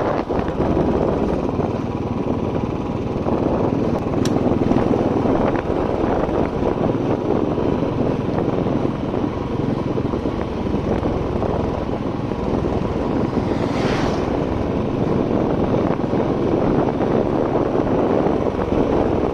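Motorcycle being ridden along a rough road, its engine running steadily under a loud rush of wind and road noise.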